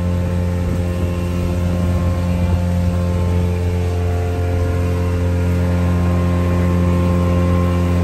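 Motorboat engine running steadily at cruising speed, a constant low drone, with the rush of the hull through the water.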